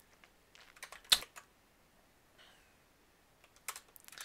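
Keystrokes on a computer keyboard: scattered key clicks in small clusters, with a sharper click about a second in and another short run of clicks near the end.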